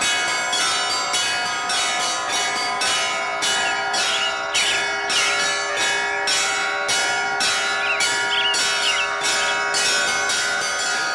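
Church bells of several different pitches struck in quick succession, about three strokes a second, each ringing on under the next in a continuous peal.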